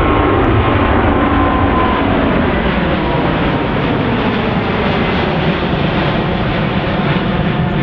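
Boeing 777-200's twin GE90 turbofans at take-off power as the jet climbs out overhead: a steady, loud jet rumble with a faint whine, growing slowly fainter.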